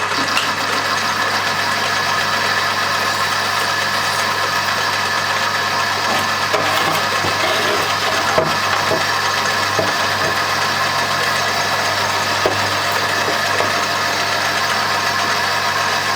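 Metal lathe running steadily under load as the tool takes a roughing cut in steel, with a constant hum of motor and gears. A few faint ticks sound as the chip comes off.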